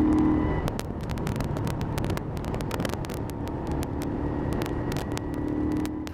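Moto Guzzi 90-degree V-twin motorcycle engine running on the road, heard from the rider's seat. Its note eases off about half a second in and picks up again about four seconds in, with wind crackling on the microphone.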